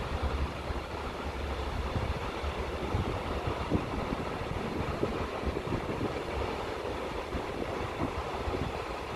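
Container freight train rolling past: a steady rumble of wagon wheels running on the rails.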